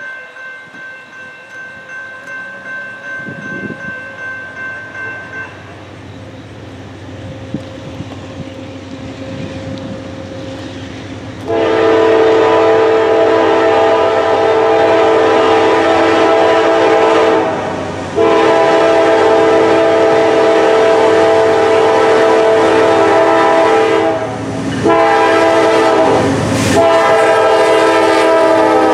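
Norfolk Southern GE Dash 9-40CW diesel locomotive's air horn sounding a loud multi-note chord in the grade-crossing pattern: two long blasts, a short one and a long one, as the train approaches. Before the horn a fainter ringing pulses about twice a second and stops about five seconds in; the locomotives' rumble and the clatter of wheels on rail build beneath the last blast as they pass.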